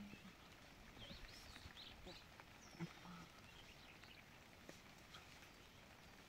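Near silence: faint outdoor ambience with a few soft, high chirping calls about one to three seconds in.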